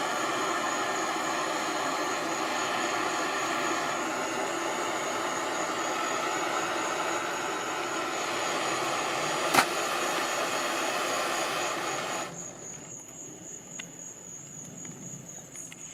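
Propane torch flame hissing steadily as it heats a copper pipe joint for soldering, with one sharp click, then shut off suddenly about three quarters of the way through. Crickets chirp steadily behind it.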